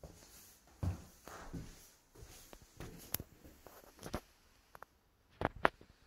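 Scattered footsteps and small knocks in a small tiled room, with a few sharp clicks a little before the end.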